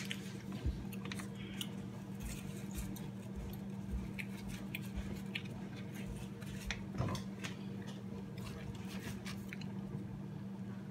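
Ground beef crackling in a frying pan as seasoning is sprinkled on and stirred in with a spatula: many small pops and scrapes over a steady low hum.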